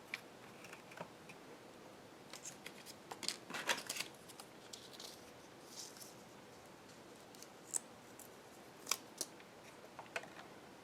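A scattered series of sharp clicks and short crisp scraping sounds from small parts being handled, densest in a cluster about two to four seconds in, with single louder clicks near the end.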